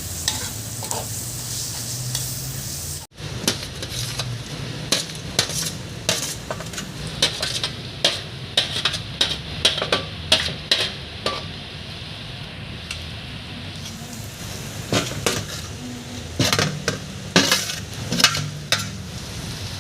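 Food sizzling as it fries in a pot while being stirred, a utensil repeatedly clicking and scraping against the pot. There is a brief break about three seconds in.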